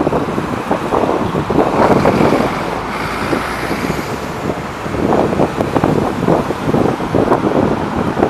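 Wind buffeting the microphone over city street traffic, with cars passing.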